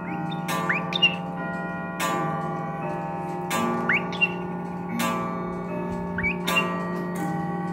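A clock chiming, a ringing struck note about every second and a half. Between the strikes a pet parrot gives short rising whistled calls, its attempts at calling its own name, 'Becky', in answer to the clock.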